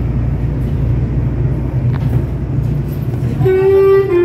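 Steady low hum inside a stopped commuter train car. About three and a half seconds in, the low hum drops away and the train's electronic chime starts, a pitched tone stepping down in two or three notes.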